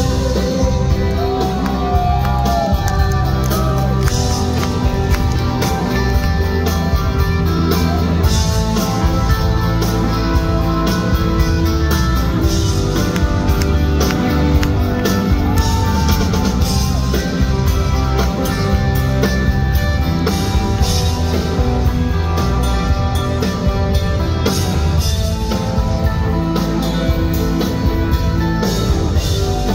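Rock band playing live, with electric guitar, bass and drums, and a gliding sung or bent-guitar line a couple of times.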